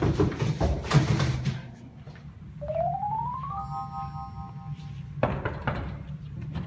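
Background music with clattering thumps in the first second and a half. Midway a rising electronic tone settles into a held chord, and near the end come a couple of sharp knocks.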